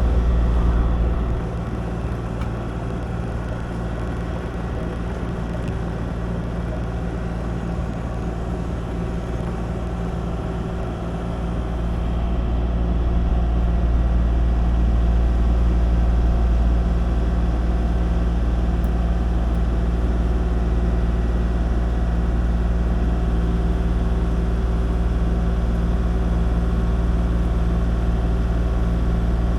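Kubota KX040 mini excavator's diesel engine running steadily, dropping a little about a second in and coming back up to higher revs around twelve seconds in.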